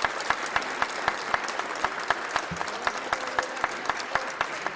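Applause from a chamber of seated deputies: many hands clapping together, with a few nearer, sharper claps standing out above the general patter.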